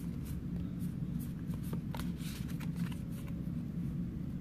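Pokémon trading cards being slid and flicked through the hands: a quick, irregular run of light card snaps and rustles over a steady low hum.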